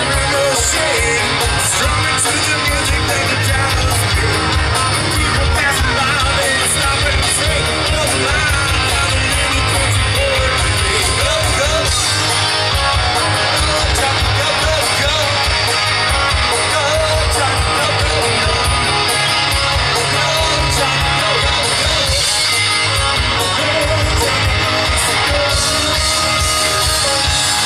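Live rock and roll band playing a fast rockabilly number, led by guitar over a steady drum beat, with some singing.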